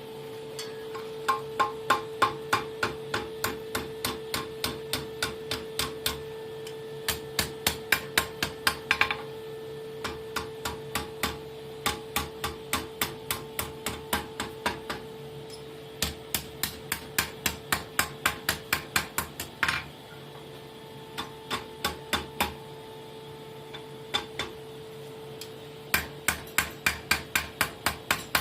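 Hammer blows ringing on steel against an anvil, as a steel fire-striker is forged and its ends bent over. The blows come in quick runs of about three a second with short pauses between runs, over a steady hum.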